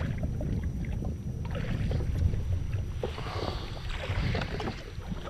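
Water slapping and lapping against the hull of a jet ski sitting still on the sea, with wind buffeting the microphone in a constant low rumble.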